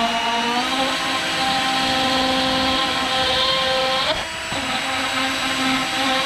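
Cordless drill spinning a carbide die-grinder burr, grinding plastic. It holds a steady whine and dips briefly in pitch about four seconds in, then picks up again.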